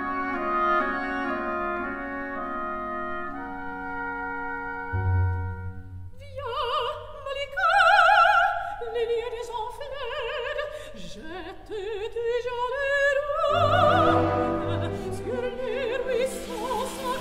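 Background music: sustained orchestral wind and brass chords, then an operatic voice singing with wide vibrato from about six seconds in. Near the end, a hiss of sizzling as a steak is laid into hot oil in a pan.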